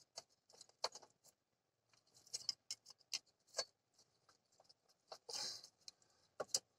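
A small pry tool clicking and scraping against the AC compressor clutch plate as it is worked around the edge to pry it off, with a slightly longer scrape about five seconds in.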